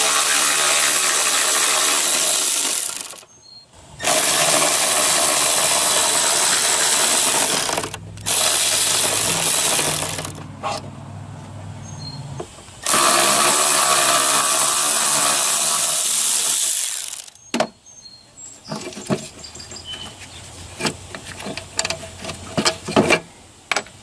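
Compressed-air blow gun hissing in four long blasts, blowing water and debris out from around the ignition coil packs on the engine's cylinder head. Near the end come a series of sharp clicks and knocks from handling tools and parts.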